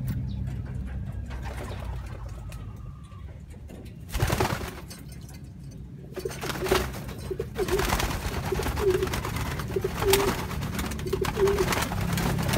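Racing pigeons cooing over and over, mixed with brief splashes and wing flaps as they bathe in a shallow basin of water. The cooing starts about halfway through, after one louder flurry of wing-beating.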